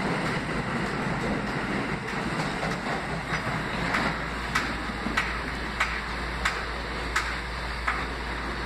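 R160B subway train departing, the running noise of its cars passing and fading over the first few seconds. After that, a sharp click comes about every two-thirds of a second over a low steady hum.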